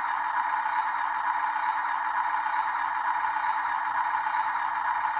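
Small motors and gearboxes of RC construction models running steadily with a rattle.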